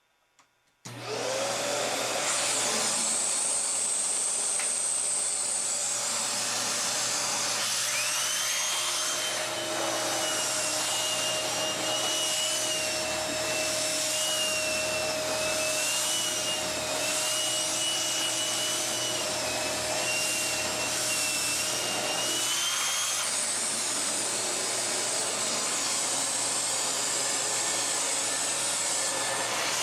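Kenmore Elite 31150 upright vacuum cleaner switching on about a second in and running steadily, working its hose with the air-driven turbo tool. A whistling whine drifts up and down in pitch as the tool moves.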